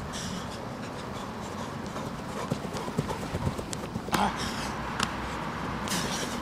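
Footfalls of a football player sprinting on artificial turf, coming as a run of dull thuds, with a sharp knock about four seconds in.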